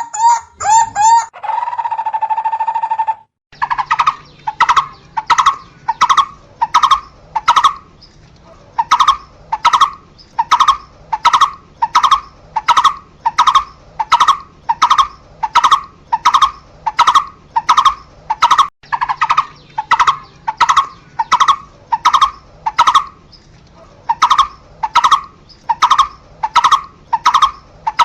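Barbet calling a long series of evenly spaced single notes, about one and a half to two a second, with two short breaks. The first few seconds hold a different, faster call and a held tone before the series begins.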